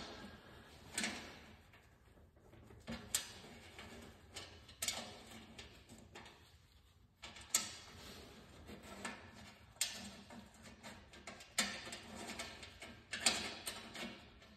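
Light metallic clicks and taps, irregular and every second or two, as nuts and washers are started by hand on the carriage bolts that hold a new scraper blade to a two-stage snowblower's housing.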